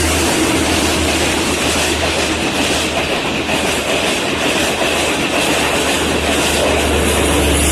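Sri Lankan diesel train passing close by, its wheels clattering over the rail joints over a steady low diesel engine hum.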